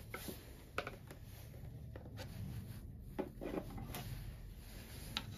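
A few faint clicks and light scrapes from a thin saw blade being handled and worked in a slot cut into an RC plane elevator.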